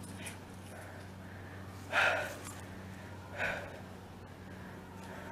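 Two short, sharp breaths close to the microphone, the first the louder, about a second and a half apart, over a steady low hum.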